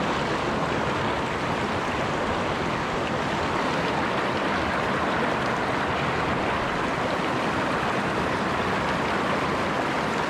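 Small rapids of a rocky mountain stream rushing and splashing over boulders, a steady unbroken noise heard close at the water's surface.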